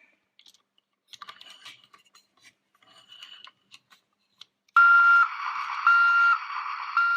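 Toy dump truck's electronic sound effect: a reversing beeper sounding three times, about a second apart, over hissy engine noise from a small speaker. It starts about five seconds in, after a few faint plastic clicks from the toy being handled.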